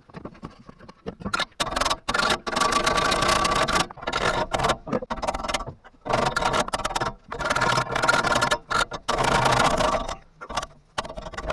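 Rapid metal-on-metal tapping with a ringing tone, in several bursts of a second or two each with short pauses between them: a hammer knocking on the small metal bar that holds a Unimog's spare tire, trying to free it.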